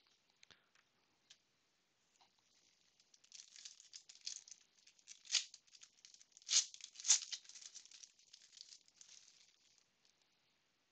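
Foil wrapper of a Panini Prizm basketball card pack crinkling and tearing as it is pulled open by hand. It starts about two seconds in after a couple of faint clicks, has a few sharp crackles in the middle, and dies away near the end.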